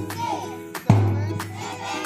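Music for a drill exercise, with a slow, heavy drum beat about once every second and a half, a stepping melody and singing voices.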